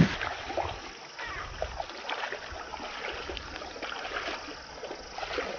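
People wading through shallow marsh water, their legs splashing and sloshing irregularly with each step.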